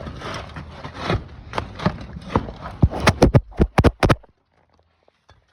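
Irregular knocking and scraping, then a quick run of about seven sharp strikes a little after three seconds in, before it stops abruptly.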